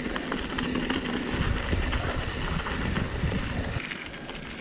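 Mountain bike rolling over a loose dirt and gravel trail: tyre rumble with frame and chain rattles and wind on the microphone. The noise eases off a little before the end.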